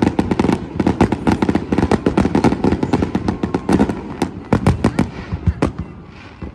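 Fireworks display: a rapid, dense barrage of bangs and crackles from bursting aerial shells, thinning to a few separate bangs near the end.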